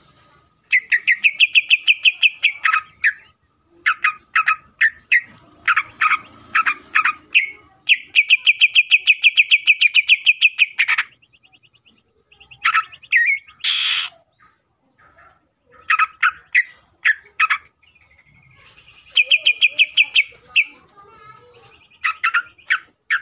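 Cucak ijo (greater green leafbird) singing: fast trills of rapidly repeated high notes, broken by sharp single notes, buzzy phrases and one harsh rasping call about fourteen seconds in.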